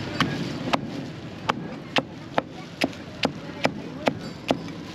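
A cleaver chopping on a chopping board in a steady rhythm of sharp strikes, about two a second, over background voices.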